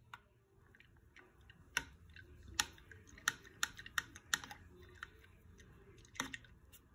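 Light, irregular clicks and taps as a wooden stick stirs soapy water in a small plastic container, knocking against the plastic. Most of the clicks come between about two and five seconds in, with a couple more near the end.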